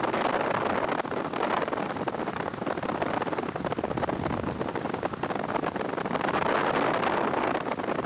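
Thunderstorm wind and rain: a steady rushing noise with a fine crackle through it and no thunderclap.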